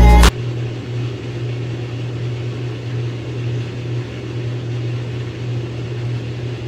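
GE washing machine running with a steady low hum and an even background hiss.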